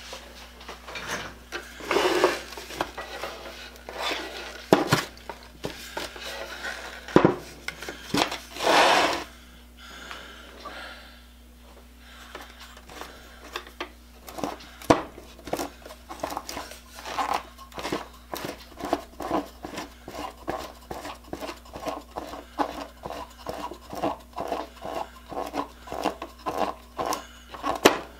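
Handling noise from a Black & Decker router on a wooden workbench while it is not running: irregular knocks and scrapes, one longer scrape about eight seconds in, then a steady run of light clicks, about two or three a second, from the second half on.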